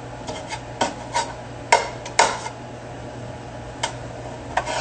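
A cooking utensil clinking and scraping against a pan, in scattered sharp strikes, over a steady low hum.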